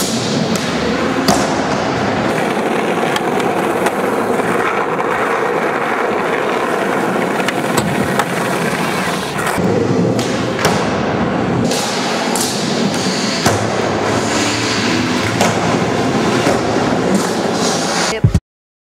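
Skateboard wheels rolling over ramp surfaces, with the clack of boards hitting and landing. The sound cuts off suddenly near the end.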